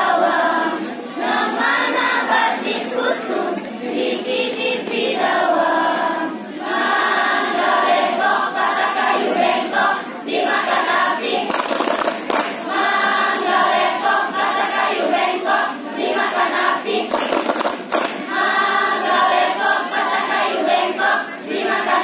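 Children's school choir singing together, boys and girls, steadily through the whole stretch. Two short bursts of noise cut across the singing, about halfway through and again several seconds later.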